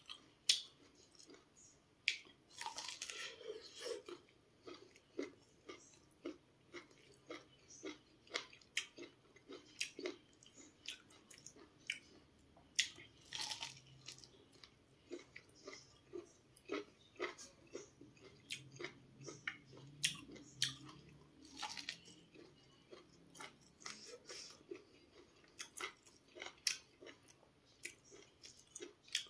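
A person biting and chewing sweet corn on the cob: a run of short crunching clicks, several a second, as the kernels are bitten off and chewed.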